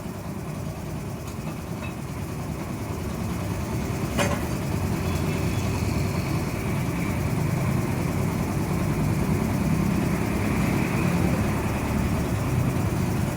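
Steady low rumble of motor vehicles running, growing slightly louder, with one sharp click about four seconds in.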